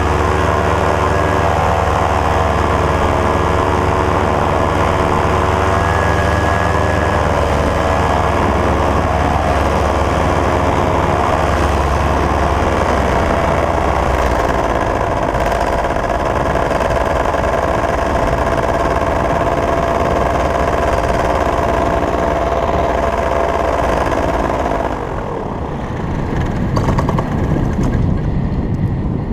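Steady droning hum over heavy wind rumble on the microphone during flight. About 25 seconds in, the drone stops and only gusty wind noise remains.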